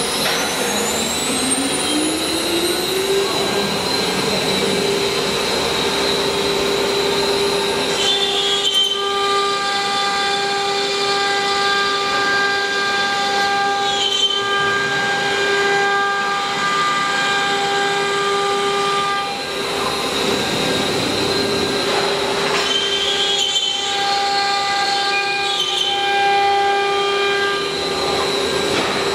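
CNC router spindle spinning up, its whine rising in pitch over the first few seconds, then running at a steady high pitch; the tone changes character several times as the overtones come and go.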